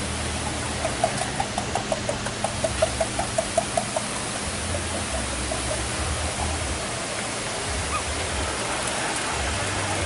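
Steady rushing of a waterfall. About a second in, a quick run of short pitched notes, several a second, lasts about three seconds.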